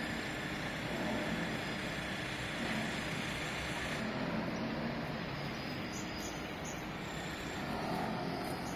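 Steady city street ambience: a continuous hum of distant traffic.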